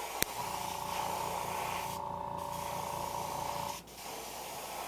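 Iwata HPCS airbrush spraying thinned hunter-green acrylic paint at about 15 psi, a steady hiss of air and paint with a faint whine. It pauses briefly near four seconds in, then sprays again.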